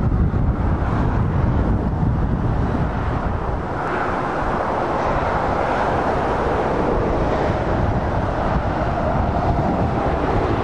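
Heavy trucks and cars driving past on a dual carriageway, a steady rush of tyre and engine noise, with wind rumbling on the microphone. The road noise grows from about four seconds in as a truck comes close and passes beneath.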